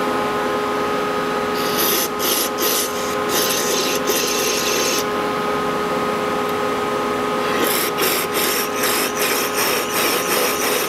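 Aerosol brake cleaner hissing out through a thin extension straw into a crankshaft's oil holes, flushing the passages to check that fluid flows through them. One long spray starts about a second and a half in and lasts some three seconds; a second starts near eight seconds and breaks into short spurts. A steady hum runs underneath.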